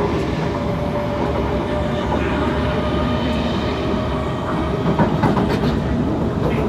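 Kawasaki C151 metro train running on the line: steady wheel and track rumble with the whine of its traction motors, and a few clicks from the wheels over the rails about five seconds in.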